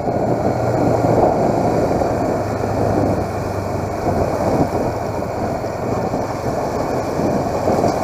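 Motorcycle engine running while riding at low speed, a steady low hum under a dense rumble of wind buffeting the camera microphone.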